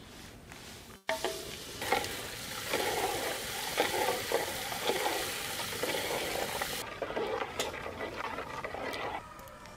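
Sugar being tipped from a steel basin into a pot of heating milk, with a ladle stirring it and scraping the pot. A pouring hiss starts about a second in and stops near 7 s, with repeated stirring strokes under it.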